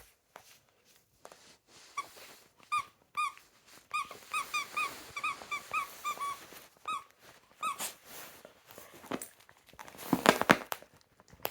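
Dog biting a squeaky toy, making a run of short squeaks that comes quickest in the middle, then a brief clatter of knocks near the end.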